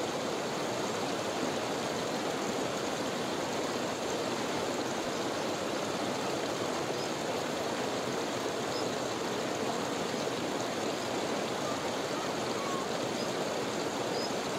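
Glacial meltwater stream running over rocks under melting ice: a steady rushing and gurgling of water.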